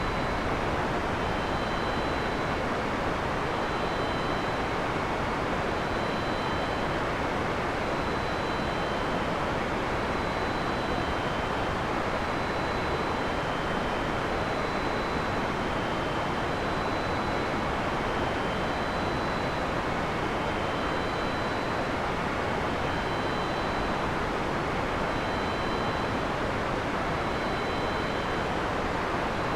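Heavy rain falling in a steady, even hiss with no thunder in this stretch. Faint short high notes recur every couple of seconds above the rain.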